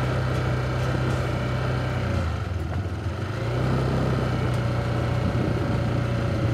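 Vehicle engine running steadily on the move, a low drone with road noise over it. The engine note eases for about a second a little over two seconds in, then comes back.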